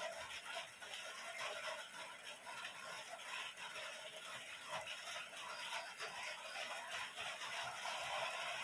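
Quiet, steady background hiss with a few faint small handling sounds.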